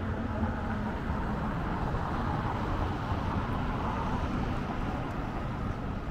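Steady city street noise: a low rumble of traffic with a general hubbub.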